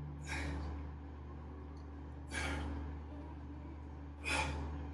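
A man breathing out hard in short, forceful bursts, three times about two seconds apart, one with each rep of a weight-plate squeeze press. A steady low hum runs underneath.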